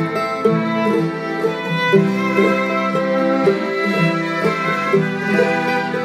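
Bluegrass-style music: fiddle playing held notes over plucked guitar.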